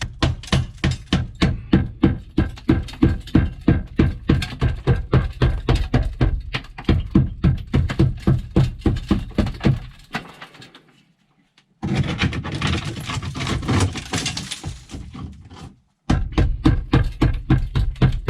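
Background music with a fast, steady beat. It fades out about ten seconds in, a denser stretch follows and cuts off abruptly, then the beat returns near the end.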